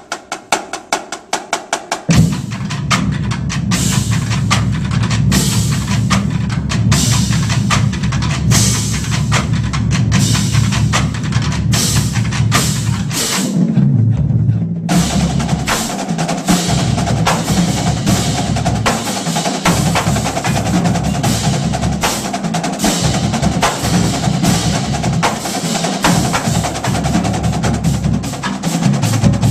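Marching band drumline playing a cadence together: snare drums with bass drums underneath. It opens with a run of sharp, evenly spaced clicks, then the full line comes in loud and dense about two seconds in.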